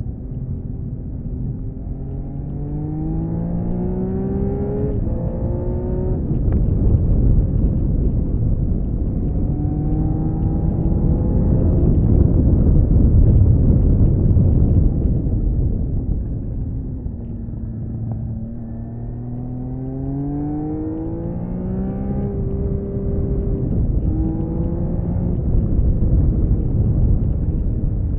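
1979 Honda CBX 1000's air-cooled 1047 cc inline six on its stock exhaust, heard onboard under hard riding. The revs climb and fall back again and again as it pulls through the gears, over a heavy low rush that is loudest around the middle.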